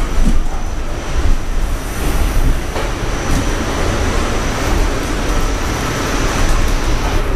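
R46 subway car running along an elevated line, heard from inside: a steady rumble of wheels on the track mixed with rushing air.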